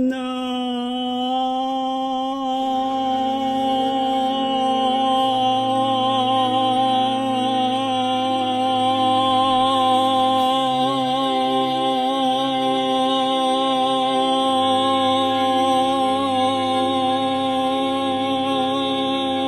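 A man singing one long held note on the word "night", unbroken throughout, with a slight waver, over an orchestral backing track that changes chords beneath it. It is a breath-endurance long tone, sung by a voice strained by a chronic cough.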